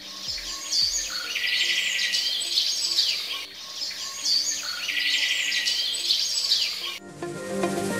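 A recording of birds chirping and singing, the same stretch looping about every three and a half seconds, over a deep beat that fades out in the first second. About seven seconds in it cuts off and electronic music starts.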